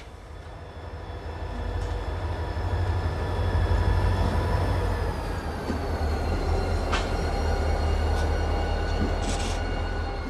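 Slow-moving freight train: a heavy low diesel rumble that builds over the first few seconds, with thin high wheel squeal tones that slide slowly lower and a few sharp clicks near the end.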